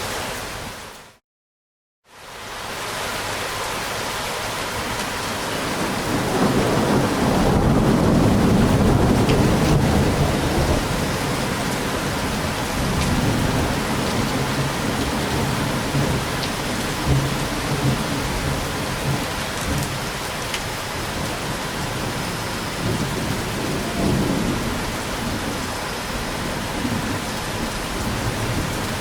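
Steady heavy rain with a long rolling rumble of thunder that builds from about six seconds in, is loudest soon after, and keeps swelling and fading for many seconds. The rain cuts out to silence for a moment near the start and fades back in.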